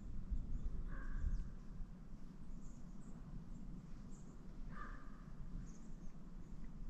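Woodland ambience with a low wind rumble. Two short calls come about a second in and again near five seconds in, with faint high bird chirps scattered throughout.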